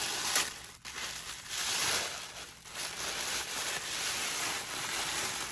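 Packaging crinkling and rustling as it is handled and unwrapped by hand, with brief lulls about a second in and again about halfway through.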